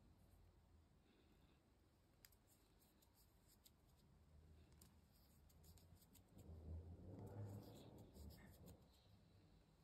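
Near silence: faint room tone with scattered light clicks, and a soft rustle about six and a half to eight and a half seconds in.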